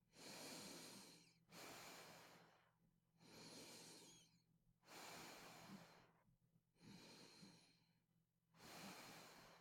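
Quiet, heavy, noisy breathing of a sleeping person with snoring sleep apnoea: six breath sounds about every one and a half to two seconds, a faint whistle in a couple of them. A steady low hum runs underneath.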